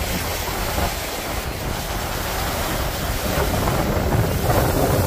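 Wind buffeting the microphone over ocean surf breaking and washing up a sandy beach, the wash swelling louder about three seconds in.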